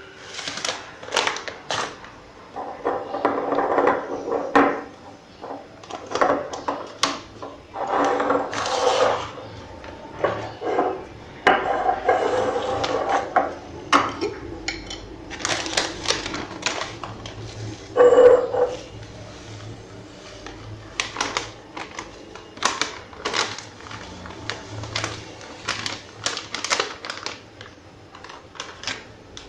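Plastic bags crinkling and dry spice flakes pouring into glass jars, with irregular clicks and knocks of jar lids and glass set down on a stone counter.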